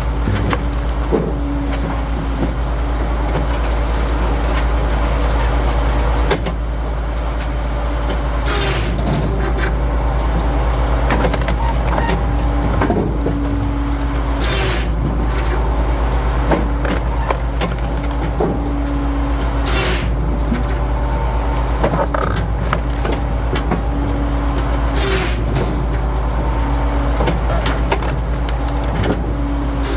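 Firewood processor at work: its engine drones steadily while the hydraulics cycle under load, with a short, sharp burst of noise about every five to six seconds.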